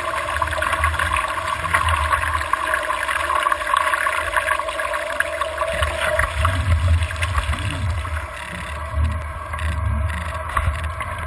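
Water rushing past a hydrofoiling single-handed sailing dinghy as it sails, heard from a camera mounted on the boat. A steady hum runs under the rush, and uneven gusts of wind hit the microphone.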